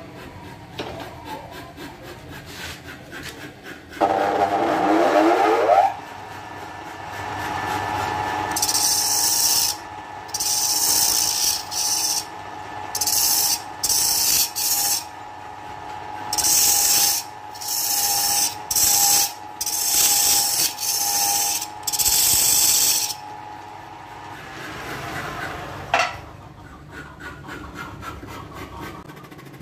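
A wood lathe speeds up with a rising whine about four seconds in, then runs steadily while something held by hand is pressed to the spinning wooden vase in about a dozen short scraping strokes. The motor fades near the end, with a single sharp click.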